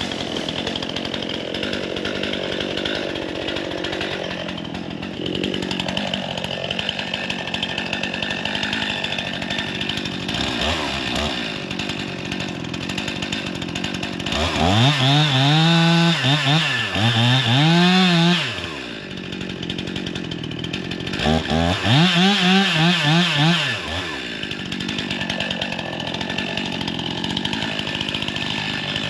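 Gasoline two-stroke chainsaw running at low speed, then revved up hard twice, each time for a few seconds around the middle of the stretch, its pitch rising and falling, with a short blip of throttle just before.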